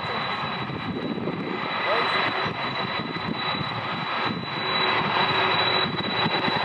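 Boeing 747-400's four General Electric CF6-80 turbofans running at taxi power: a steady high fan whine over a continuous rumble.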